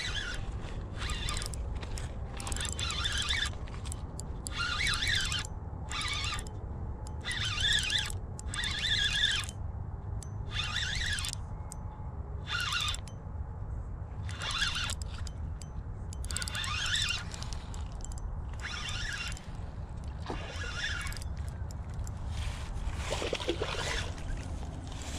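Spinning reel buzzing in short bursts, roughly one a second, while a hooked smallmouth bass is played in on light line, over a steady low wind rumble. Water splashes near the end as the fish comes to the bank.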